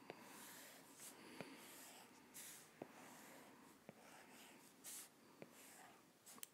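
Near silence: faint ticks of a stylus tip tapping the iPad's glass screen, roughly one every second, with soft breaths near the microphone.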